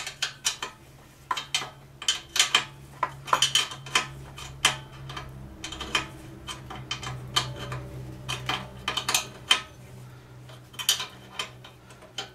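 Irregular metallic clicks and clinks of a wrench working a nut onto a socket-head bolt on a pressure washer pump, in quick clusters over a faint low steady hum.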